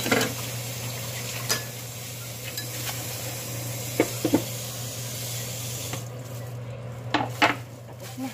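Kitchen clatter: dishes and utensils clinking and knocking several times over a steady hiss that stops about six seconds in.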